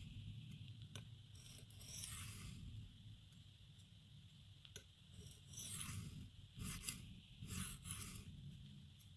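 A knife's 9Cr18MoV steel blade stroked across a diamond sharpening plate: a few faint, separate scraping passes, coming closer together in the second half. The blade is being reground at the tip, where it had been rounded over.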